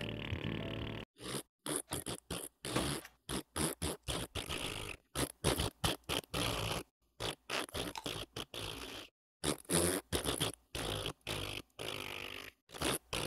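A quick series of blown raspberries, short spluttering lip-blown 'pfft' noises made by voice, one after another with brief pauses between them. They start about a second in, after a short steady sound.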